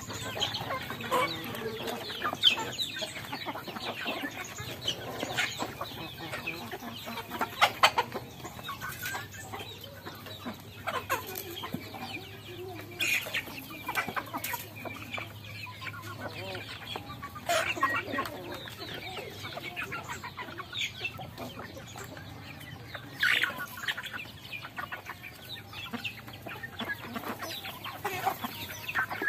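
A flock of chickens clucking as they feed, a busy stream of short, irregular calls.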